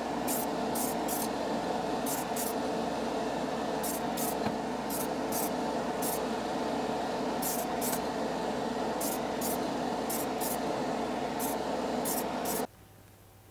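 Aerosol spray paint can hissing in short bursts, mostly two at a time, over the steady running of a hobby spray booth's extractor fan. Everything cuts off suddenly near the end.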